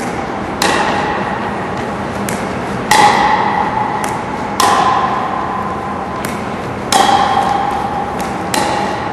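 Pickleball paddles striking plastic pickleballs in a rally: a string of sharp pocks about one to two seconds apart, several loud and some fainter, each trailing a ringing echo.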